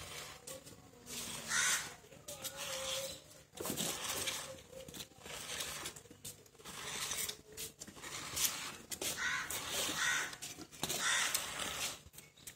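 Milk squirting from a goat's teat into a plastic bowl already holding milk during hand-milking: a run of short hissing squirts, about one a second.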